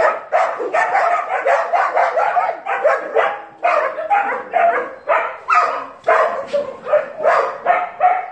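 Dog barking rapidly and repeatedly, about three barks a second, stopping near the end.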